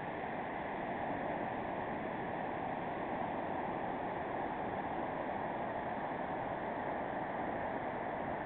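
Surf of a rough sea, waves breaking on a sandy beach as a steady rushing noise.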